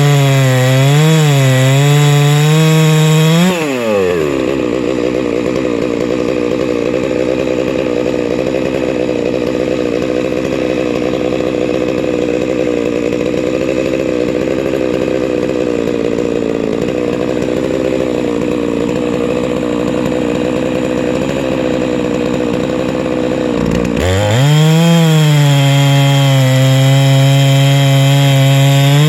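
Huztl MS660 clone chainsaw's two-stroke engine at full throttle with its pitch wavering under load, dropping to a steady idle about four seconds in. About twenty seconds later it revs straight back up to full throttle and holds there.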